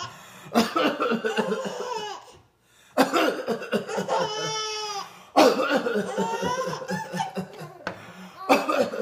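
Five-month-old babies laughing hard at a man's coughing, in about four bouts that each start abruptly, with a short silent break in between and a high-pitched squealing laugh in the middle.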